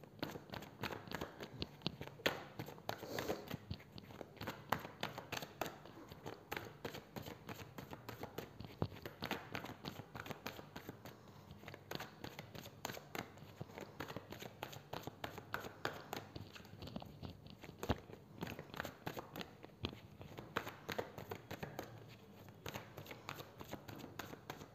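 A deck of tarot cards being shuffled by hand: a quick, irregular run of papery flicks and clicks that comes in flurries.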